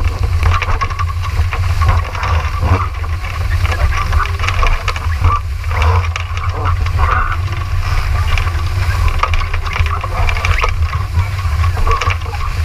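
Wind buffeting the camera microphone with a constant low rumble, over the hiss and splash of water rushing along the hull of a Laser Vago dinghy sailing fast in rough, gusty conditions.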